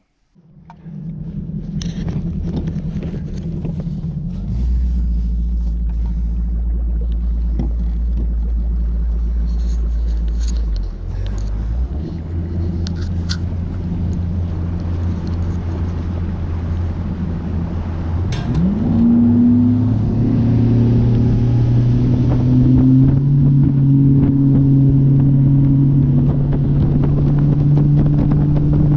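Bass boat outboard motor running under way. A low steady drone about 18 seconds in rises in pitch as the throttle comes up, then holds steady at the higher speed.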